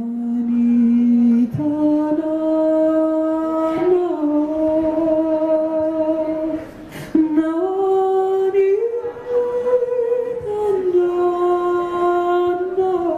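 A woman sings unaccompanied into a microphone: long held notes that step up and down between pitches, broken by a few short pauses.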